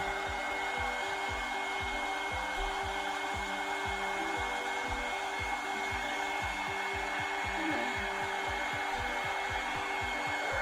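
Handheld hair dryer brush blowing steadily, with a steady high whine and a fast low flutter of about four pulses a second.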